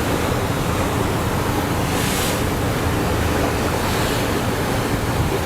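Steady rush of wind across the microphone over the wash of sea water past a slowly moving ship, with a low rumble underneath.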